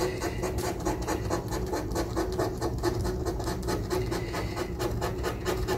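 Coin scraping the scratch-off coating of a lottery ticket in quick, regular back-and-forth strokes.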